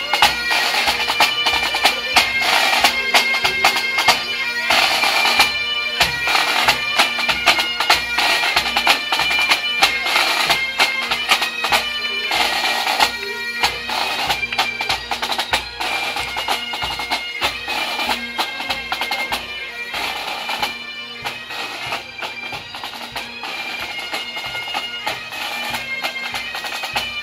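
Pipe band playing on the march: Highland bagpipes sound a tune over their steady drones, with drums beating time underneath. The band grows somewhat fainter toward the end.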